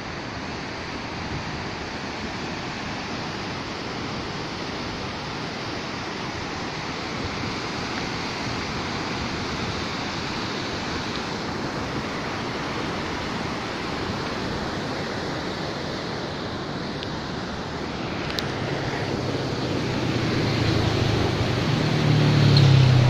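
Steady rushing of a fast, turbulent, muddy river, growing louder and deeper near the end as the river passes close below.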